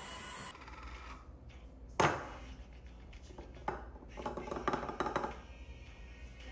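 Small hard objects being handled and set down: one sharp clink about two seconds in, then a flurry of lighter clinks and clicks a little later.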